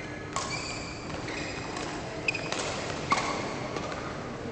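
Badminton rally: several sharp hits of racket strings on a shuttlecock, spaced about a second apart, with short squeaks of court shoes on the floor.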